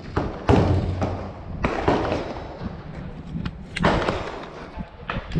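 Three loud shots from a .300 AAC Blackout AR-15 rifle, about half a second, a second and a half and four seconds in, each trailing off in a long echo, with a few lighter clicks near the end.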